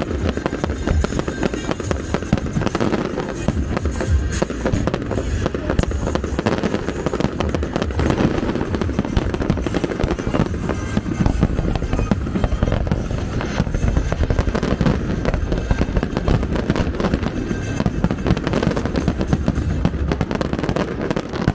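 Aerial fireworks display: shells bursting and crackling in a dense, unbroken run of bangs and crackles.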